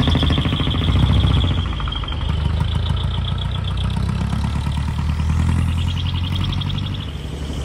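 Light-duty truck's diesel engine running as the truck drives past and pulls away, a steady low rumble of rapid firing pulses that eases slightly near the end.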